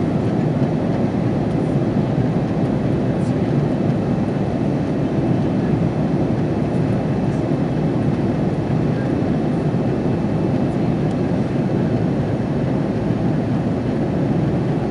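Steady cabin noise inside an Airbus A330-300 in flight: an even, unchanging rumble of engines and airflow.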